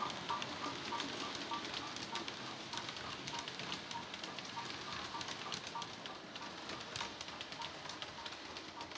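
Hornby Merchant Navy model steam locomotive running on a DCC sound decoder: steam chuffs from its small speaker at a steady beat of about three a second, with the model wheels ticking and hissing on the track, slowly fading as the train moves away.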